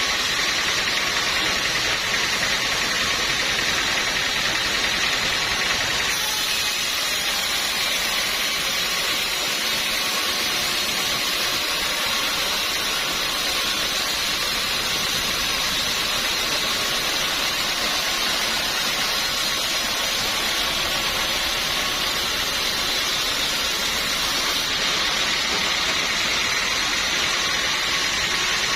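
Sawmill machinery running with a steady, loud, even whirring noise. The high hiss shifts slightly about six seconds in and again near the end.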